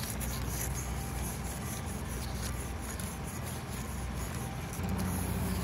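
Plastic toy steamroller and toy loader pushed through damp sand: gritty scraping with faint crunches of sand, over a low steady hum that grows a little stronger near the end.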